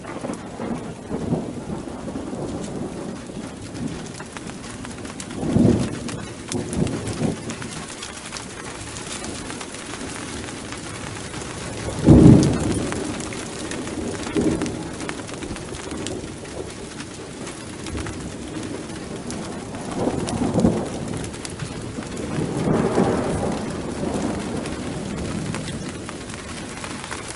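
Steady rain falling through a thunderstorm, with several low rolls of thunder swelling and dying away. The loudest roll comes a little before halfway through.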